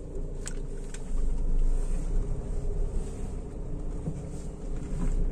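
Honda Amaze driving slowly in first gear through a full-lock U-turn, with a steady engine and road rumble. No clicking is heard from the freshly replaced front drive shaft, the sign that the worn CV joint's clicking has been cured.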